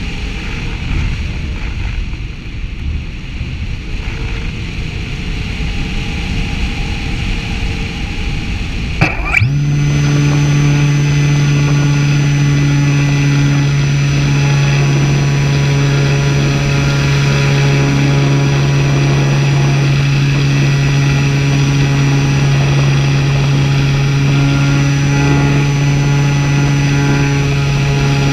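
Small propeller plane in flight: first the rush of airflow with the motor running low, then about nine seconds in the motor throttles up with a quick rise in pitch. After that it runs steadily at one constant pitch.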